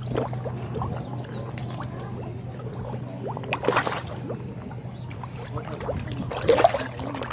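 Koi feeding at the pond surface: water splashing and slurping with many small clicks, and two louder splashes about three and a half and six and a half seconds in.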